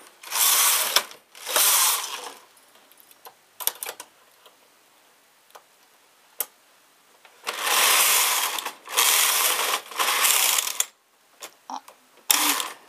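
Knitting machine carriage being pushed across the metal needle bed: a rasping, rattling run of about a second per pass, twice at the start and three times from about seven and a half seconds in. Between the passes, small clicks of needles and a hand transfer tool being worked on the bed.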